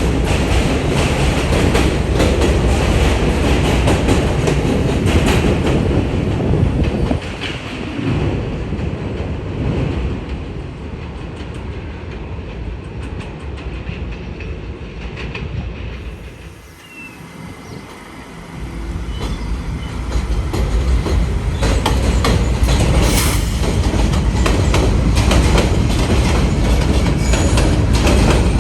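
New York City subway train passing through the station, wheels clattering over the rail joints. The noise dies down about two thirds of the way through, then swells loud again as a train comes through.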